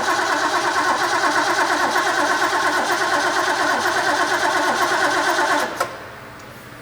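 Ford 351 Cleveland V8 being cranked over by its starter on its first start attempt, turning over rhythmically without firing. The cranking stops abruptly near the end.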